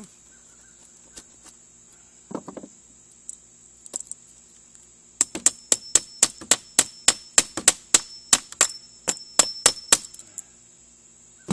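Quick run of sharp knocks, about four a second for some five seconds in the second half, as hand tools (a screwdriver and a razor knife) are struck and jabbed into plywood to chop a hole wider. A few single ticks and a short vocal sound about two seconds in come before it.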